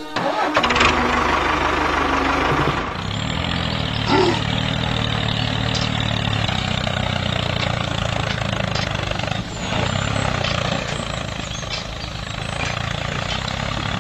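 Tractor engine running steadily, louder and rougher for the first three seconds.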